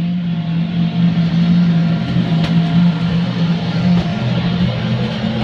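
Steady, loud hum of a bounce house's electric inflation blower running.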